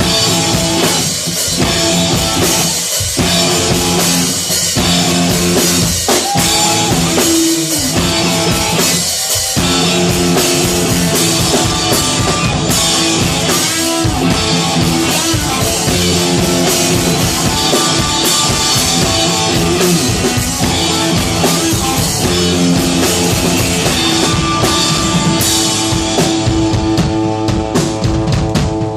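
Rock band playing an instrumental passage live: drum kit with bass drum, and guitars holding sustained notes, loud and steady.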